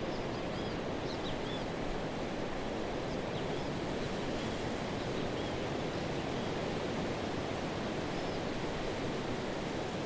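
Pacific surf washing onto a sand beach, a steady, even wash of waves and running foam with no single break standing out.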